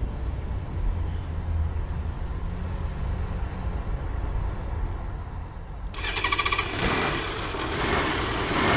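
Low steady traffic rumble, then about six seconds in a small motorbike engine starts with a rapid stuttering catch and runs on, revved, as the repaired scooter is tried.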